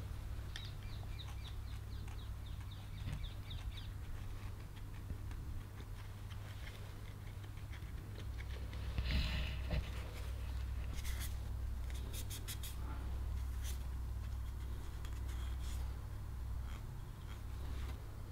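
Light scratching and scraping from hand work on a wooden hand-plane knob. A louder rasp comes about halfway through, followed by a few sharp clicks, all over a steady low hum.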